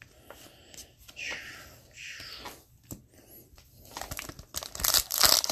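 Wrapper of an Upper Deck Series 2 hockey card pack being torn open and crinkled, with soft rustling at first and louder crackling tears over the last second and a half.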